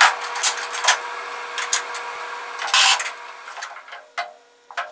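Steel brackets, bolts and spacers clinking, knocking and scraping against a plywood buck as it is fitted to the car body. Several sharp clicks come first, then a longer scrape a little under three seconds in, and fewer, fainter clicks toward the end.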